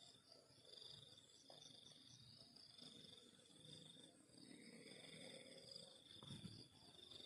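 Faint field crickets trilling in repeated bouts of about a second each, with a second, lower-pitched trill joining in around the middle.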